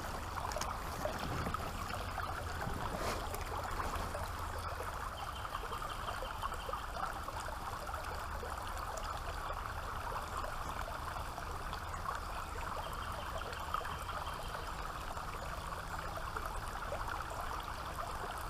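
Creek water running and trickling steadily.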